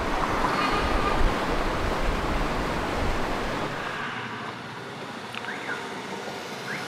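Town street ambience: a steady rushing wash of traffic and street noise, which drops to a quieter level about four seconds in. A few faint, short, high chirps come in the second half.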